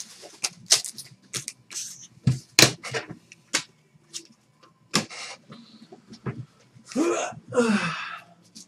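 Trading card packs and cards being handled: scattered light clicks and taps, then two longer, rough, wavering sounds about seven to eight seconds in.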